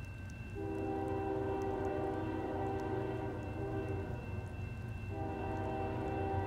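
Diesel freight locomotive horn sounding a chord of several tones: a long blast starting about half a second in, a short break near four seconds, then a second blast starting about five seconds in and still going at the end. A steady low rumble runs underneath.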